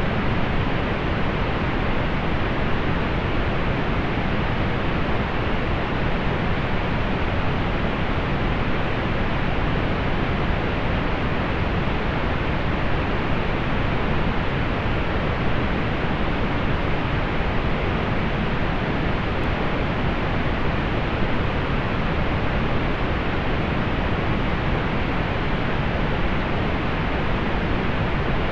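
Steady pink noise: an even, unchanging hiss, heavier in the low end and rolled off in the highs.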